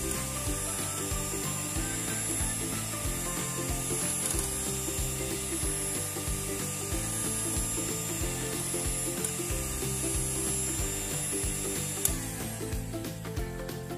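Electric hand mixer running, its twin wire beaters whipping cream in a ceramic bowl with a steady motor whine. The motor cuts off about twelve seconds in.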